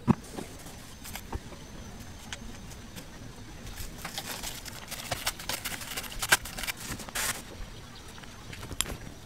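Hands fitting an acrylic house-number plate onto its wall standoff bolts: a sharp click at the start, then scattered small clicks, taps and scraping. A busier stretch of crackly handling noise comes in the middle.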